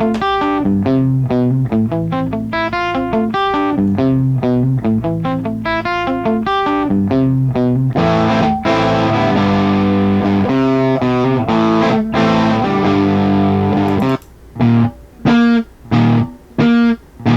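Electric guitar recorded direct through a Power Baby amplifier pedal and an IR cabinet loader, distorted by output-stage breakup. It plays picked single notes, then a denser, fuzzier stretch of chords from about eight seconds in, then short chord stabs with gaps between them near the end.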